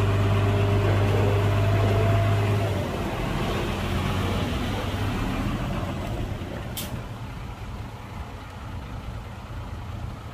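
Heavy diesel engine of an earthmoving machine running hard with a steady low note, then easing off about three seconds in and settling to a quieter idle. A brief sharp hiss comes about seven seconds in.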